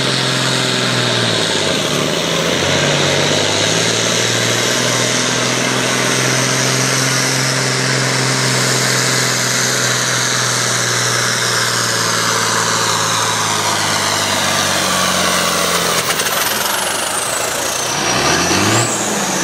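International Harvester 1066 farm tractor's turbocharged diesel engine running hard and steady under full load while pulling a sled. Near the end a high whistle falls in pitch, and the engine note dips sharply and comes back up.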